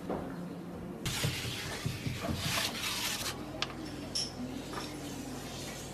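Earthenware cooking pots clattering and scraping on a stone oven floor. A rush of scraping starts about a second in and lasts about two seconds, followed by a few sharp clinks, one of them ringing briefly.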